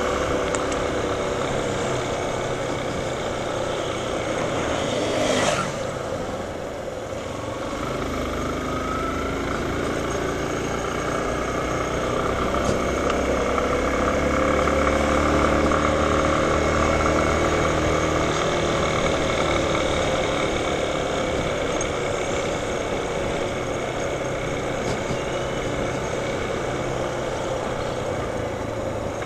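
Motorcycle engine running on the move, heard from on board with wind noise over it. There is a brief rush of noise about five seconds in, then the engine picks up from about eight seconds in and eases off again.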